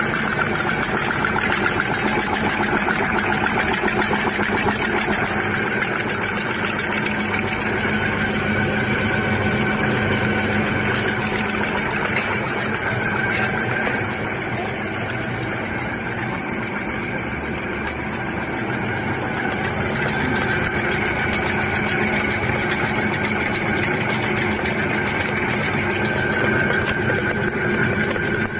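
Screw end drilling machines running together, a steady rapid mechanical clatter over a constant hum.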